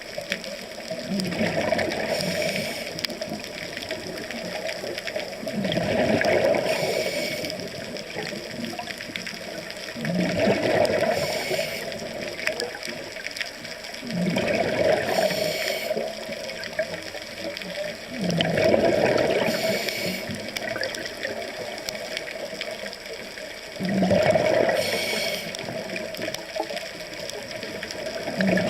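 Scuba diver breathing underwater through a regulator: a long rushing exhale of bubbles and a short hiss of inhalation, repeating about every four to five seconds.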